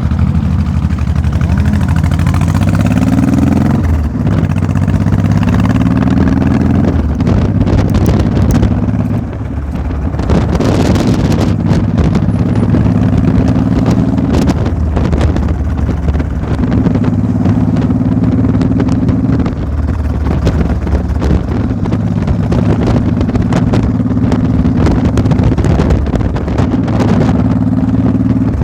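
A vehicle engine running under load, its pitch climbing and dropping back several times in the first few seconds, then holding steady in long stretches with brief dips.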